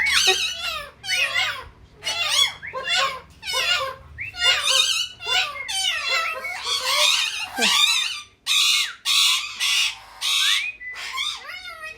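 Pet parrots chattering in quick warbling, whistled calls, with harsh squawks about two thirds of the way through.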